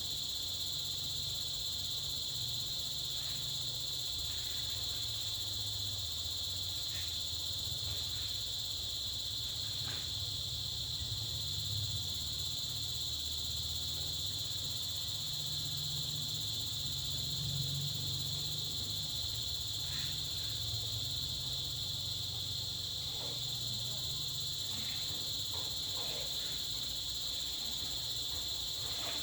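A steady, high-pitched insect chorus of crickets, unbroken throughout, over a low hum, with a few faint ticks.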